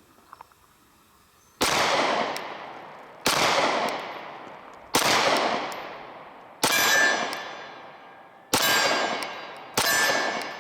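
Glock 19X 9mm pistol with a DPM recoil-reduction guide rod fired six times, slowly, one shot every second and a half or so, each report trailing off in a long echo. The pistol is held limp-wristed to test whether it still cycles. A ringing tone follows the later shots.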